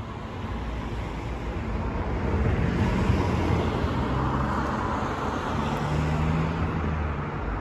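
Road traffic: a motor vehicle's engine hums low and steady over tyre and road noise, swelling about two seconds in and easing off near the end.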